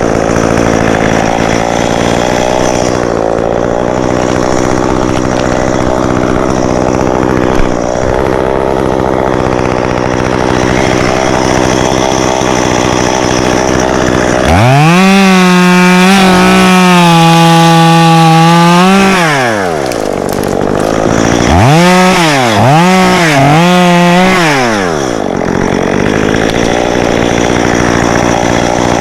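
Two-stroke Stihl chainsaw idling steadily, then revved to full throttle and held there for about five seconds before dropping back. Later it gives four quick revs up and down and settles back to idle.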